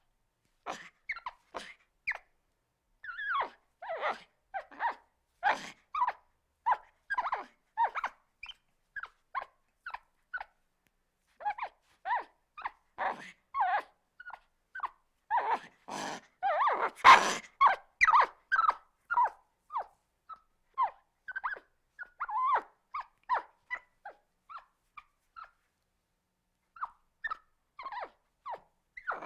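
Monkey calls: a long irregular series of short, high-pitched cries in quick succession, with a louder, harsher outburst about seventeen seconds in.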